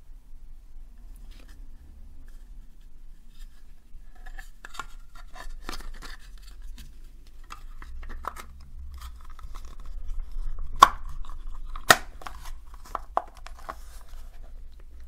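Two halves of a small plastic power-supply case fitted together and handled by hand: scraping and light knocks of plastic, with two sharp clicks about two-thirds of the way through.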